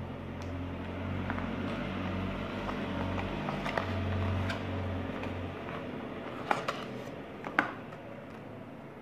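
Handling noise from unboxing: a small cardboard box and paper packaging rustling and clicking under the hands, with two sharp taps near the end. A low steady hum underneath stops a little past halfway.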